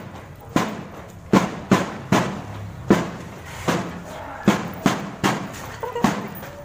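Marching drums of a school drum band beating a cadence: sharp strikes about every half second to second, some accented louder, each with a short ring.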